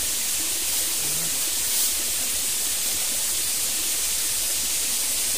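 Steady, even rush of a small river's flowing water.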